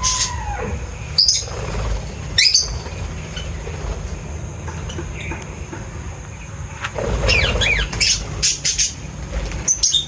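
Birds giving short, sharp chirps and squawks at intervals, with a cluster of quick gliding calls near the end, over a steady low rumble.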